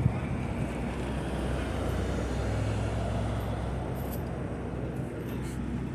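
Heavy engine of construction equipment or a truck running steadily, its low note swelling a little a couple of seconds in, then easing.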